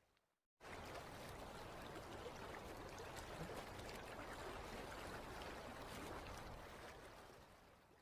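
Waterfall sound effect: a steady rush of falling water that cuts in suddenly after a brief silence just after the start, holds even, then fades out near the end.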